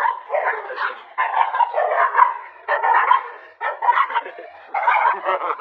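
Small dogs barking at each other in rapid volleys, about five runs of quick barks broken by brief pauses.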